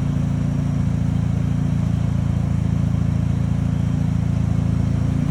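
Car engine idling steadily, an even low hum with no change in speed.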